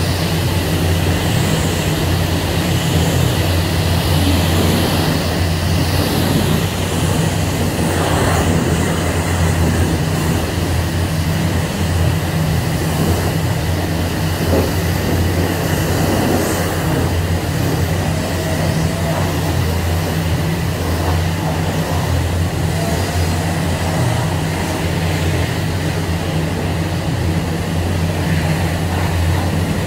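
High-pressure water spraying in a car wash bay, rinsing soap off a car, over a steady low mechanical hum.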